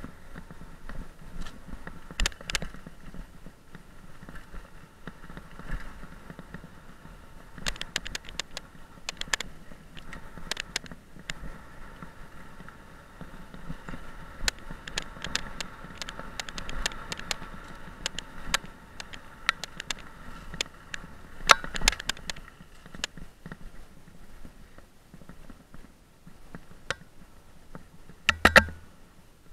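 Mountain bike ridden fast over a dirt forest trail: tyre rolling noise and wind on the microphone, broken by frequent sharp clicks and rattles as the bike jolts over rough ground, with a heavier knock near the end.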